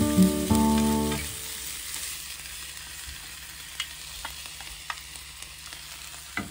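Stir-fried mixed vegetables sizzling quietly in a hot rectangular tamagoyaki pan as they are scraped out with chopsticks, with a few light clicks of the chopsticks against the pan.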